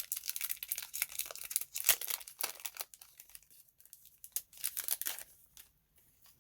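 Plastic packaging crinkling as it is handled and pulled open, dense for the first three seconds and again briefly around the fifth second.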